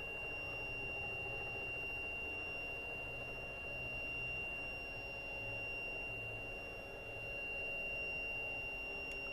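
A steady high-pitched electrical whine with one unchanging pitch, over a faint low hum that swells slightly now and then.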